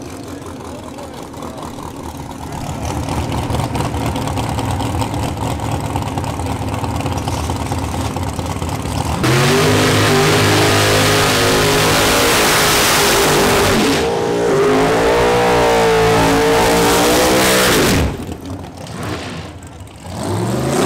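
Pro Mod drag racing cars (a Chevelle and a GTO) first running at a steady level, then opening up to full throttle about nine seconds in, very loud for about nine seconds with a brief dip partway. The engines then cut off with a sharp drop in pitch, and a short rising rev follows near the end.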